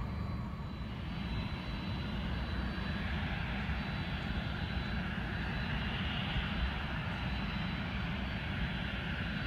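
Airliner on approach, its jet engines a steady distant rushing drone that grows a little louder about halfway through as the plane nears.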